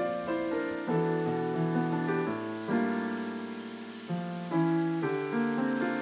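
Background piano music: chords and notes struck every second or so and left to ring out.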